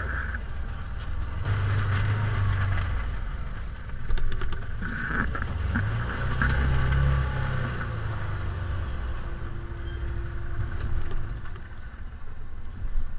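Side-by-side UTV engine running at low speed, heard from inside the open cab, with the engine note swelling and easing about halfway through. A few short knocks and rattles come a few seconds in.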